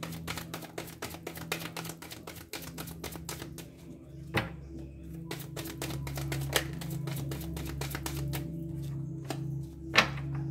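A deck of tarot cards shuffled by hand: a rapid, uneven patter of card clicks, with two louder knocks, about four seconds in and near the end. Background music with sustained low tones plays underneath.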